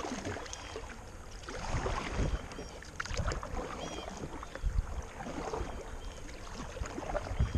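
Water splashing and lapping with scattered knocks against a small boat, and wind buffeting the microphone.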